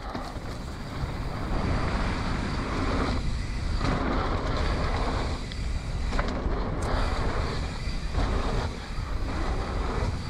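Wind rushing over the rider's camera microphone while a mountain bike rolls fast down a dirt trail, tyres rumbling on the dirt. The rush swells and eases every second or two.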